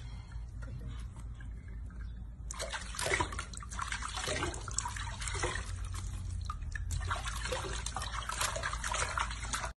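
Water sloshing and trickling in a sink basin as hands scoop it over and rub a young monkey being bathed. The splashing is sparser at first and picks up about two and a half seconds in.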